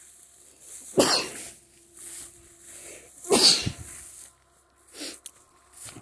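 A man gives two loud, forceful bursts of breath close to the microphone, about two seconds apart, each dying away within half a second.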